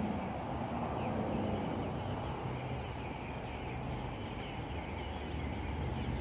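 Steady outdoor background noise with faint bird chirps.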